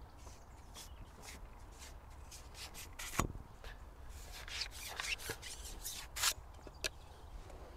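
Irregular rustling and light clicks of handling, with one sharper knock about three seconds in, over a low steady wind rumble on the microphone.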